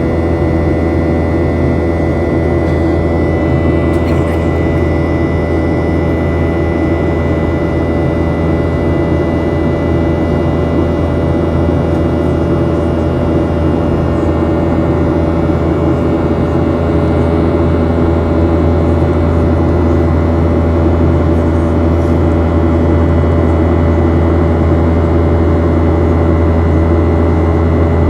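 Boeing 737-800's CFM56-7B jet engines running steadily at an even, loud level: a low drone with a steady high tone above it.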